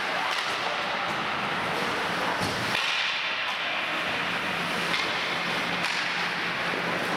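Ice hockey play: a continuous scraping hiss of skate blades on the ice, with a few sharp clacks and knocks of sticks and puck.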